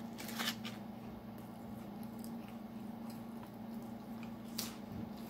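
Crunching and chewing of crunchy crackers: a few crackly crunches near the start and a sharper crunch near the end. A steady low hum runs underneath.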